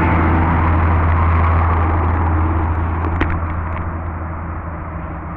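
A motor engine running steadily, a low drone with a noisy rumble that slowly fades; a single sharp click about three seconds in.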